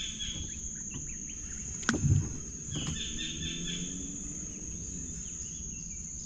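Steady high-pitched insect drone from the riverbank, with a bird calling in two short runs of quick repeated chirps. A single knock about two seconds in, the loudest sound.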